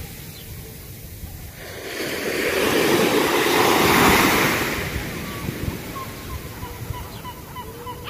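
Small waves breaking and washing up a sandy beach: one surge of surf builds about two seconds in, peaks around four seconds, then draws back.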